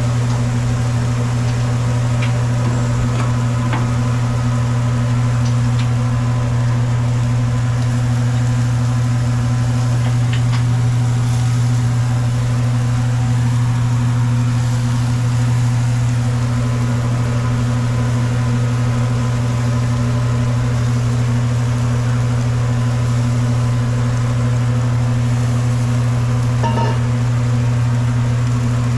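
A steady low machine hum that runs unchanged throughout, with a few faint ticks now and then.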